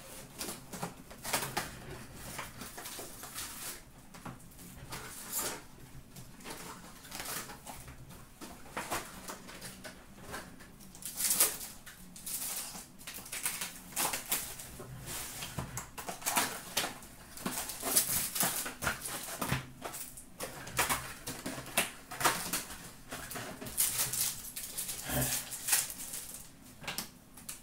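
Hockey trading cards and their packs being handled at a counter: irregular rustling, crinkling and light clicks as packs are opened and cards are flipped through and sorted.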